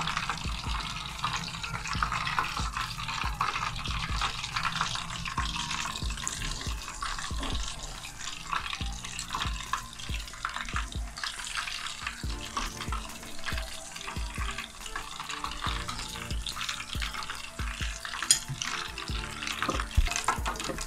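Fish pieces frying in hot oil in a metal pan: a steady crackling sizzle, with clicks of metal tongs against the pan as the pieces are turned and lifted out.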